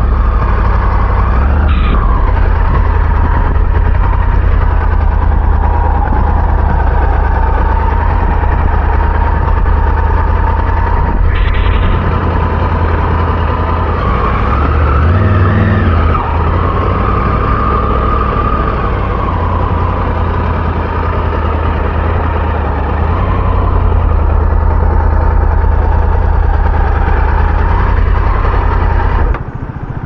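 Adventure motorcycle's engine running as the bike is ridden slowly along a muddy track, with a steady deep rumble of wind on the microphone. The engine's pitch rises and falls a little midway, and the sound drops away abruptly near the end.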